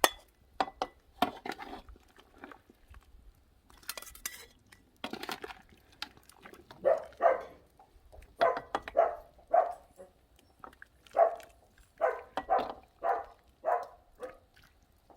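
A few light clinks of cookware, then a dog giving a long run of short, repeated cries, about two a second, from about seven seconds in until near the end.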